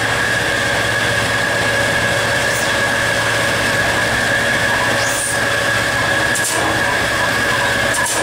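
Cab interior of an EMD GT36HCW diesel-electric locomotive running at speed: a steady mix of engine and rail noise with a constant high whine, and a few brief clicks from the track.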